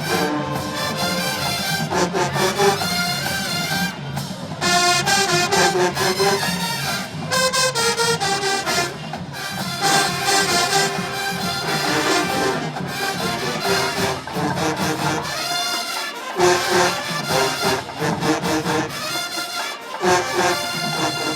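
HBCU-style marching band playing a song, brass carrying the tune over drums; the low drums drop out briefly twice near the end.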